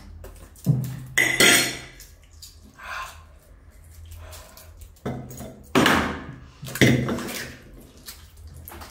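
Boiled eggs being cracked and peeled at a table, with eggshell crackle and spoons clinking on plates in several short, sharp clatters.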